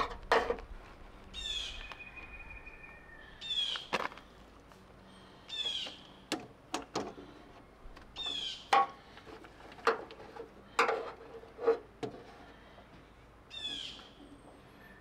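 A bird repeatedly gives high, downward-sweeping calls every couple of seconds, one trailing into a short held whistle. Under it are scattered knocks and clicks of hands rummaging among metal parts in a van's engine bay.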